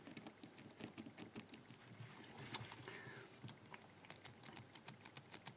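Faint, irregular light clicking of a four-wheel combination padlock's number wheels being turned through their detent positions, several clicks a second.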